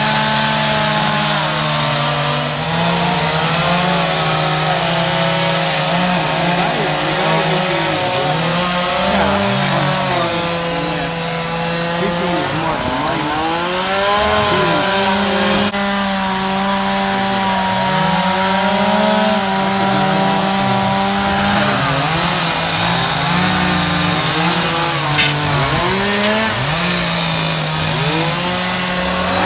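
Chainsaws carving wood, more than one running at once, their two-stroke engines held at steady speed and repeatedly revving up and dropping back as the carvers rough out their blocks.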